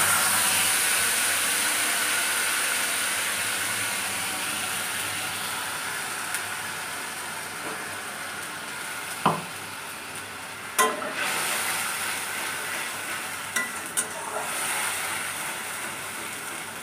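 Onion, ginger and green chilli paste sizzling in hot oil in a metal kadai, loud at first and fading steadily as the wet paste cooks. A few sharp clinks of metal utensils against the pan come from about nine to fourteen seconds in.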